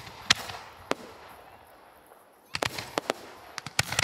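Aerial firework shells bursting in sharp bangs: one loud report just after the start and another a moment later, then a lull, then a rapid cluster of bangs from about two and a half seconds in.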